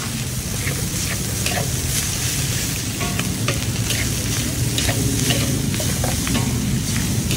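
Metal spatula scraping and clacking against a large steel wok as fried rice is stir-fried, in short irregular strokes, a few each second, over a steady sizzle.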